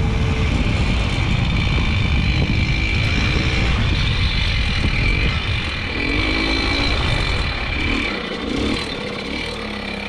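Babetta 210 moped's 50 cc two-stroke single-cylinder engine running under way, with heavy wind buffeting on the microphone. The sound eases off and drops in loudness in the last couple of seconds as the moped slows.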